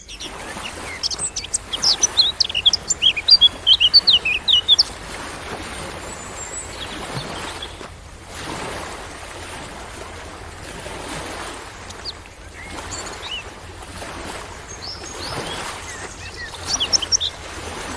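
Birds chirping over a steady wash of ocean waves that swell and recede every few seconds. The first five seconds hold a dense run of quick, high chirps, and another short burst comes near the end.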